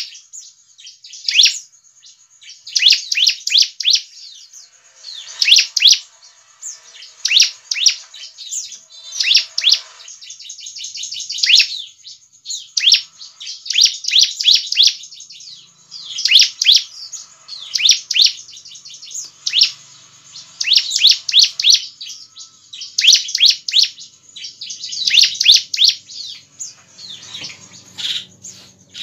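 Bar-winged prinia (ciblek) calling: repeated bursts of rapid, high chirping notes, each burst about a second long, coming every second or two.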